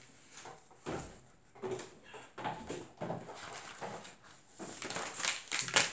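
Sheets of printed scrapbooking paper being leafed through and handled, with irregular rustles, flaps and small knocks that come thickest and loudest about five to six seconds in.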